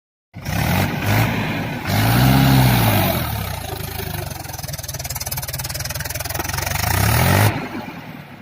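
Mahindra tractor's diesel engine running hard, its pitch rising and falling twice as it revs. It cuts in suddenly and drops away sharply near the end.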